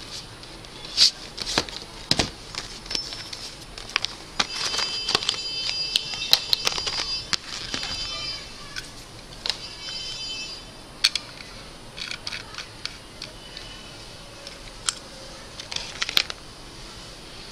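Hands unpacking and handling small electronics. Cardboard and plastic packaging rustles and crinkles, with scattered clicks from cables and connectors, and a denser crackly stretch in the middle.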